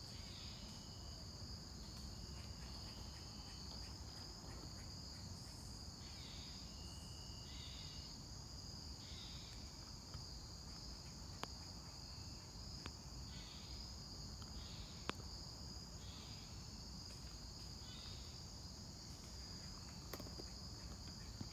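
A steady high-pitched insect chorus, crickets and the like, with a second, lower insect call that comes and goes about once a second.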